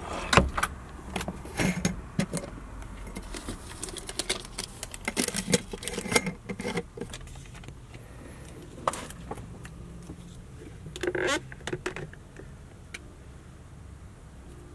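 Scattered clinks, knocks and rustles of small objects being handled in a van's kitchen area: things taken down from a shelf and a cup and tea bag handled at the counter, over a low steady hum.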